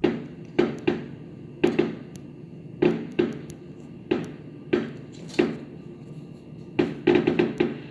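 Fireworks going off: repeated sharp bangs, mostly in pairs, with a quick run of several near the end.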